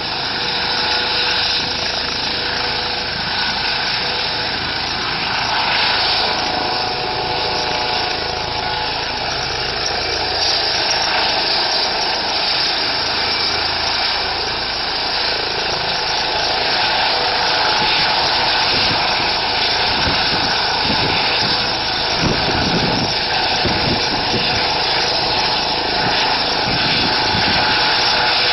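Eurocopter EC135 helicopter's twin turbine engines and rotor running, a loud steady turbine whine and rushing noise. An uneven low fluttering from the rotor joins in for roughly the last third.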